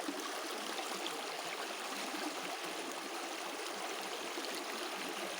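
Clear water flowing steadily along a small channel, a continuous babbling and gurgling rush.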